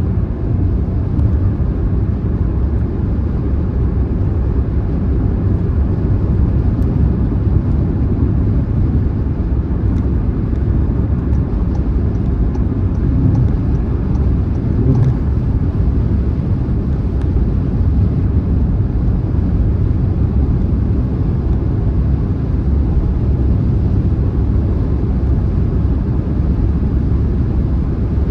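Car driving at motorway speed: a steady, low, even rumble of road and tyre noise with the engine droning underneath, unchanging throughout.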